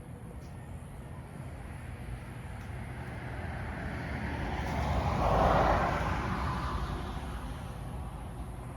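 A vehicle passing by, its tyre and road noise swelling to a peak about halfway through and fading away, over a steady low rumble of wind on the microphone.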